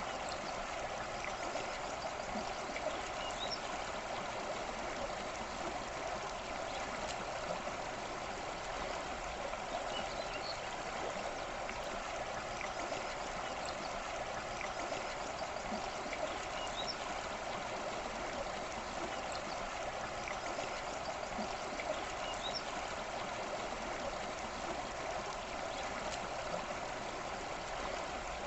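Forest stream flowing steadily, with faint, scattered bird chirps above the rush of water.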